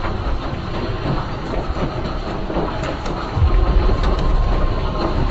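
Landslide rumbling as earth and rock come down: a dense, steady low rumble with scattered knocks, swelling about three and a half seconds in.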